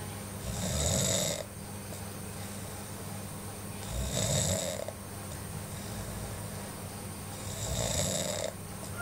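A person snoring: three snores about three and a half seconds apart, each lasting about a second, over a steady low hum.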